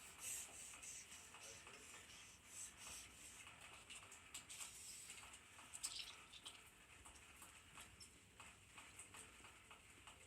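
Near silence with faint scattered clicks and rustling.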